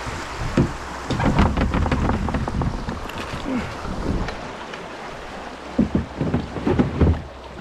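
Kayak being paddled down a shallow creek: splashes and irregular knocks of paddle and hull on the stony bed, busiest twice, with wind rumbling on the microphone.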